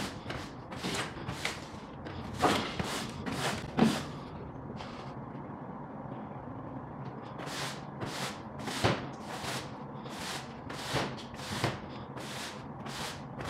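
Broom sweeping a semi-trailer floor: quick scraping strokes about two a second, with a pause of a couple of seconds in the middle.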